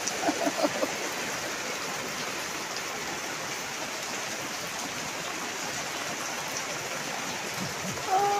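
Heavy rain pouring down steadily, an even hiss of rain falling on a paved patio and garden.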